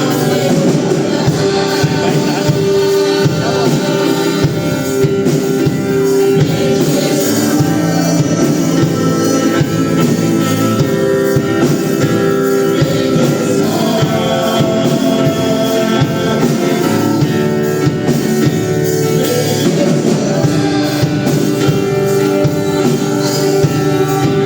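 Gospel worship music at a church service: a band with guitar playing a continuous song, with singing over it.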